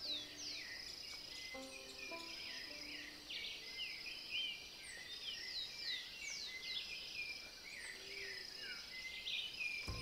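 Birds chirping, with many quick downward-sweeping calls overlapping one another, over a steady high-pitched insect drone.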